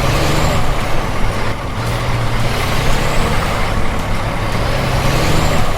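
Heavy truck engine running steadily and loudly, its low pitch shifting up and down a little as it drives.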